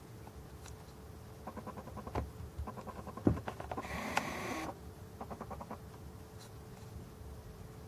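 A camcorder's zoom motor whirs for just under a second near the middle, right after a sharp click. Before and after it come several short trains of rapid soft clicking, over a faint steady hum.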